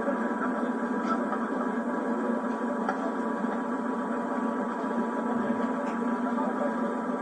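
Steady, noisy soundtrack of an old home-video tape heard through a television speaker, with a constant low hum and no clear single event.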